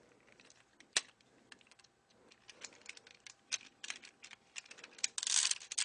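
Plastic gear mechanism of a Transformers Voyager Blackout toy clicking as its lever is pressed to spin the propeller and the attached Scorponok's pincers. Scattered sharp clicks, one louder about a second in, running into a rapid clatter near the end.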